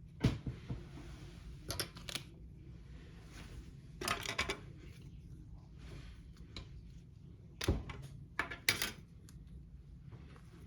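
Small plastic kit parts being handled and fitted together by hand: sharp clicks and brief rattles in a few short clusters, with quiet handling in between.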